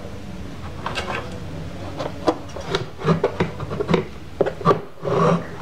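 A hand handling a subwoofer driver inside an open wooden speaker cabinet, rubbing and scraping against the wood and wiring. Irregular light knocks and clicks come more often in the second half.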